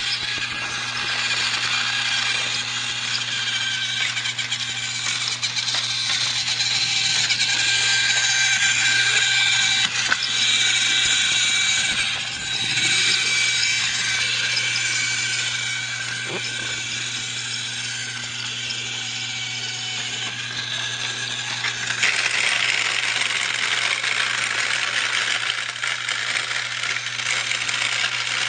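Battery-powered toy train running on plastic track, its small motor whirring steadily with a continuous rattling clatter, getting brighter and a little louder for the last several seconds.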